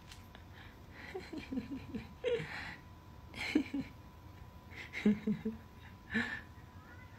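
Soft, breathy human chuckles in short, separate bursts, about five of them.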